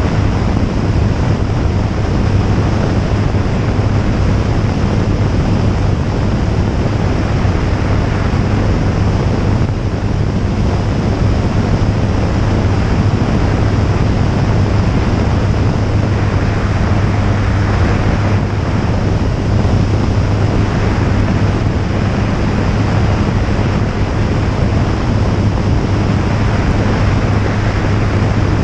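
Jabiru J160 light aircraft in flight: its four-cylinder engine and propeller running at a steady cruise drone, buried in heavy wind rush over the microphone.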